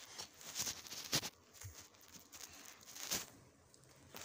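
A hand rolling and pressing a ball of Play-Doh on a wooden tabletop: soft rubbing with light taps, a sharp tap about a second in and another near three seconds.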